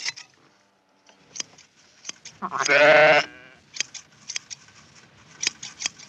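A sheep being shorn gives one loud, wavering bleat just under a second long near the middle. Scattered sharp clicks of the shears cutting through the fleece come before and after it.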